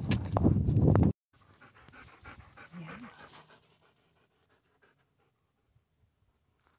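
A dog panting, a quick run of rapid breaths, after a loud rushing noise that cuts off abruptly about a second in.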